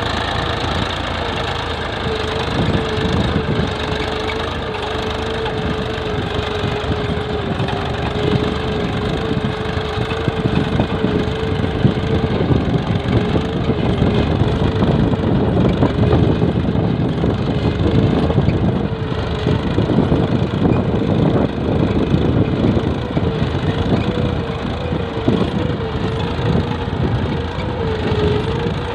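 Massey Ferguson 245 tractor's three-cylinder diesel engine running steadily under load while pulling a tine cultivator through ploughed soil, a deep rumble with a slightly wavering whine above it, a little louder from about ten seconds in.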